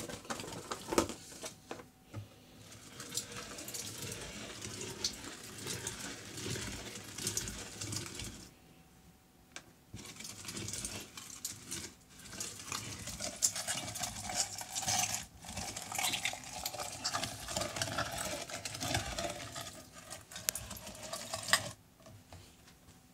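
Tupperware Profi-Chef D 205 hand-cranked plastic meat grinder being turned while it minces raw beef: a dense, rapid clicking and creaking of the plastic auger and cutter, in two long spells with a pause of about a second and a half between them. A few sharp knocks of handling come near the start.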